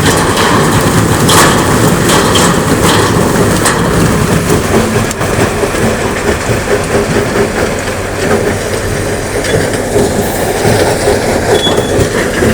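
Dumped rock tumbling and clattering, over a steady heavy rumble. Sharp knocks and cracks come thickest in the first few seconds, then the sound settles into a churning roar.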